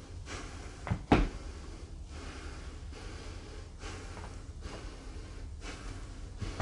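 A sharp thump about a second in, with soft breaths close to the microphone.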